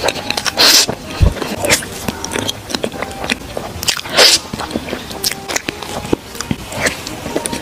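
Close-miked eating sounds: wet smacks and clicks of lips and mouth on a plastic spoon of soft, creamy layered dessert, with louder sucking noises near the start and about four seconds in.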